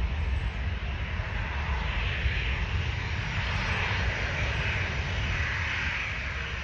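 Jet airliner's engines running on the runway: a rushing hiss that grows louder about two seconds in, over a steady low rumble.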